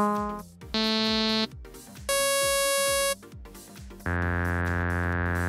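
Massive software synthesizer notes triggered from an Akai MPD218 pad controller, played as separate held tones that stop cleanly when the pad is released. A short mid-pitched note comes about a second in, a higher, brighter note follows around the middle, and a longer, lower note comes near the end.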